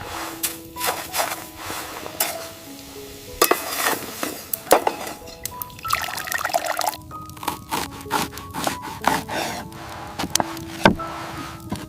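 Background music of slow held notes, with scattered knocks, clicks and scraping of handled gear throughout.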